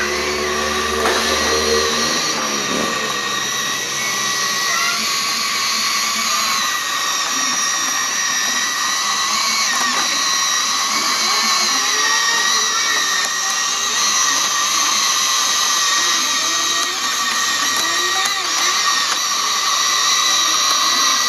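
Huina 1593 radio-controlled excavator's small electric motors whining steadily, in a drill-like way, as the toy excavator drives on its tracks and moves its arm.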